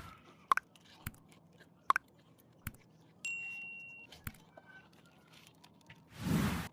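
Someone eating crunchy fried moong dal snack, a few sharp crunching clicks spread through. A short high beep sounds about three seconds in, and a brief rushing noise comes near the end.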